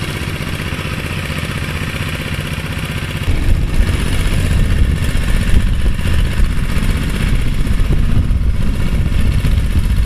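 Engine of a concrete power trowel running steadily as fresh cement is smoothed and polished; it gets louder, with more low rumble, about three seconds in.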